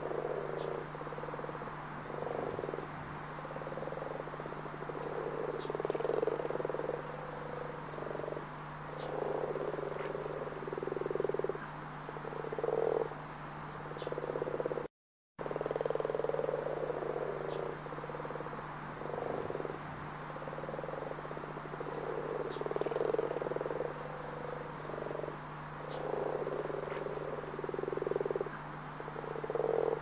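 Frogs croaking, call after call in pulsing bursts with short breaks, over a low steady hum. The sound drops out for a moment about halfway through, and the same stretch of calls starts over.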